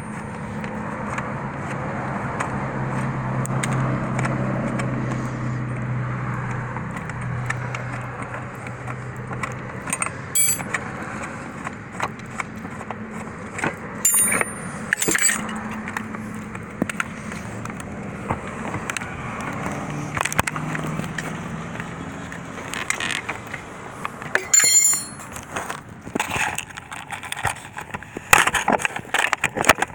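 Small metal parts and tools clinking and clicking against a steering column as it is taken apart, most of the clinks in the second half, over a steady low hum that fades and returns.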